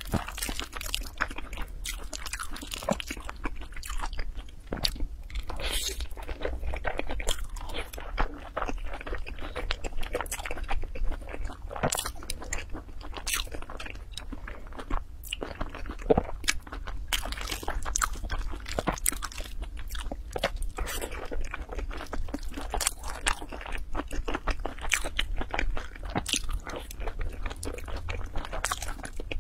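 Close-miked mouth sounds of a person chewing and biting a crunchy rice dish: dense, irregular crunches and crackles with moist chewing between them.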